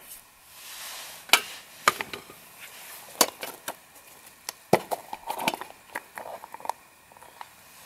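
Handling noises: a soft scrape as a cleaning rod is pulled through a handgun barrel, then a scattering of sharp clicks and light knocks as gear is handled and set down.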